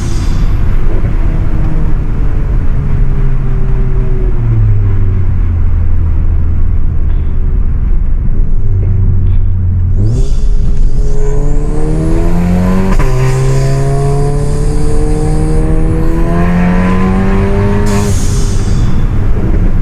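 Stage 3-tuned Volkswagen Golf GTI Mk7's turbocharged 2.0-litre four-cylinder, heard through a decat exhaust. The engine winds down and cruises for several seconds, then pulls hard through two gears with a rising turbo whistle, with a gear change in between. Near the end, when the throttle closes, there is a short burst of turbo flutter.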